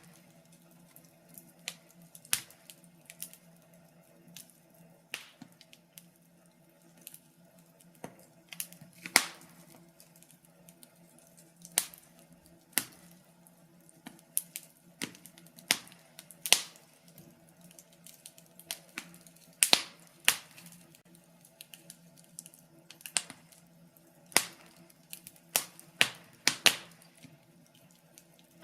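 Wood fire burning in a fireplace, crackling with sharp, irregular pops and snaps, some single and some in quick clusters, over a faint low steady hum.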